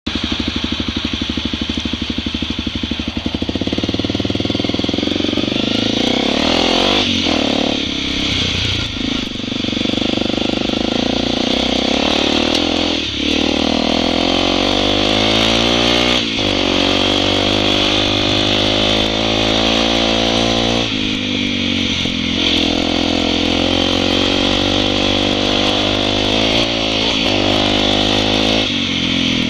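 Honda dual-sport motorcycle engine heard from the rider's seat. It runs at idle for the first few seconds, then pulls away and accelerates through the gears, the pitch climbing in each gear and dropping back at each shift. Wind and road noise run underneath.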